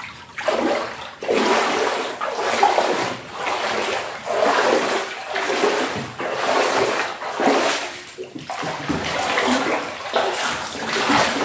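Legs wading through floodwater inside a flooded house: sloshing and splashing that surges with each step, about once a second.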